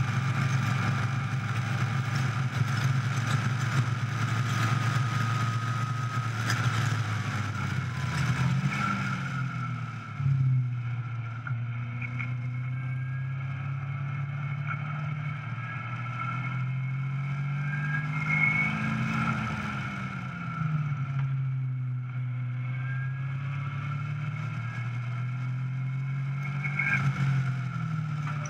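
Caterham 420R's 2.0-litre Ford Duratec four-cylinder engine running hard on track, heard from the open cockpit with wind rush. The engine note is held high for the first several seconds, then falls and climbs again as the driver comes off and back on the throttle for corners, with a sudden loud surge about ten seconds in. The same dip and rise comes again around eighteen to twenty seconds and near the end.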